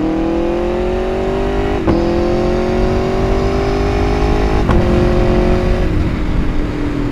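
Aprilia Tuono 1100RR's V4 engine accelerating through the gears: the engine note rises steadily, with a sharp drop at each upshift near the start, about two seconds in and nearly five seconds in, then it settles to a steady, lower cruise near the end, over wind rumble.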